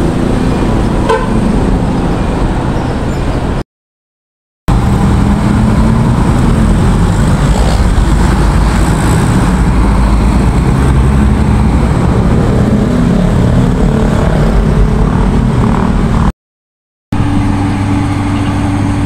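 Loud motor-vehicle noise: engines and road noise running steadily, cut off twice by brief dead-silent gaps. After the second gap, a steady low engine hum.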